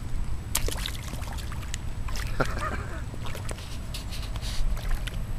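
A dog splashing as it wades in shallow water and grabs a large carp, with scattered short splashes and clicks over a steady low rumble.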